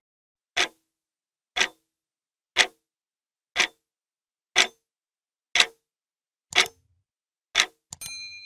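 Wall clock ticking once a second, eight even ticks. Near the end come a few quick small clicks and a short ringing ding.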